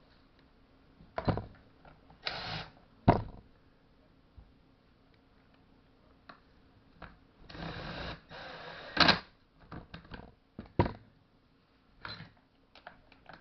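Hand tools and small parts being handled during chainsaw repair work: scattered clicks and knocks, the sharpest about three and nine seconds in, with short scraping sounds around two and a half seconds and eight seconds in.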